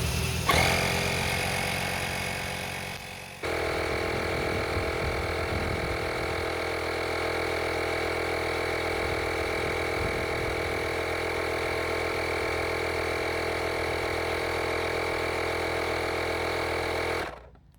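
Portable 12 V tyre inflator running steadily, pumping air into a car tyre. The sound steps up in level about three seconds in and stops abruptly near the end.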